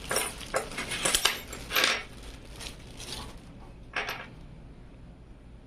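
Hands handling a PC case and its packaging and parts: a run of rustling, clattering clinks over the first two seconds, then one more clink about four seconds in.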